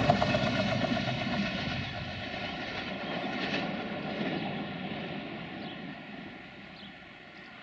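Two-car diesel multiple unit running away along the track, its engine drone fading steadily as it draws off.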